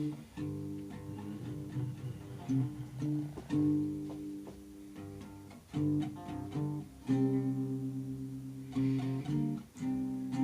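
Guitar playing an improvised instrumental intro: chords strummed and picked, changing every second or so, with a run of quick repeated notes a little past the middle.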